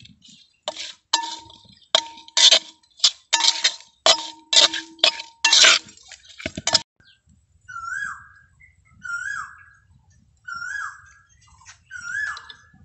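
A metal spatula knocks and clinks against the bowl about twice a second while small fish are tossed in spice. After about seven seconds the clinking stops, and a short call that falls in pitch repeats about every second and a half.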